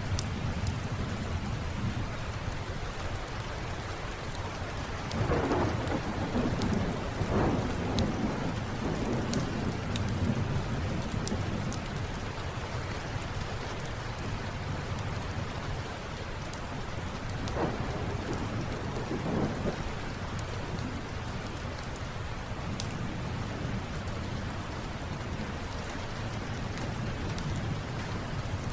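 Steady rain with rolling thunder: two long rumbles swell up, one about five seconds in and another about seventeen seconds in. Scattered sharp little crackles or ticks sound over the rain.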